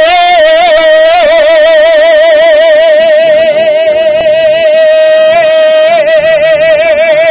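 A woman's singing voice holding one long high note with an even, regular vibrato, the drawn-out last syllable at the close of a bolero.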